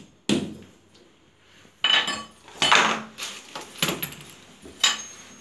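Metal tools and fittings clinking and knocking as they are handled, about half a dozen sharp strikes at uneven intervals.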